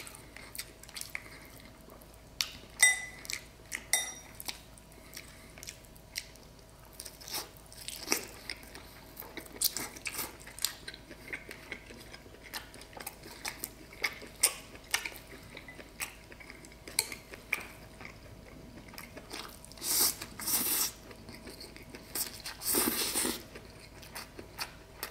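Close-miked eating: wooden chopsticks clicking and scraping against a ceramic bowl of rice noodles and grilled beef, with chewing in between. Two longer, louder stretches of mouth noise come near the end.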